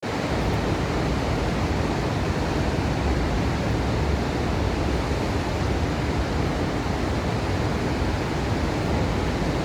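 Steady rushing roar of the Niagara River's whirlpool rapids, with a gusty low rumble of wind on the microphone.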